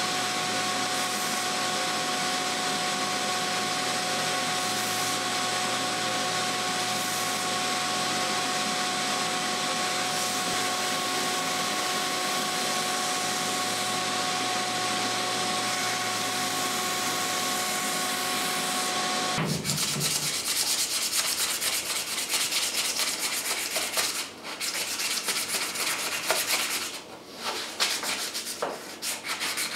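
Central Machinery bench belt sander running steadily with a constant motor whine as a mahogany knife handle is sanded against its belt. About 19 seconds in it cuts to hand sanding with sandpaper: quick, uneven rubbing strokes with short pauses.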